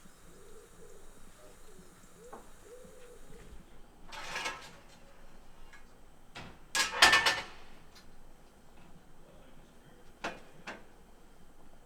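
Scattered short clanks and scrapes, loudest in a cluster about seven seconds in, with two lighter knocks near the end.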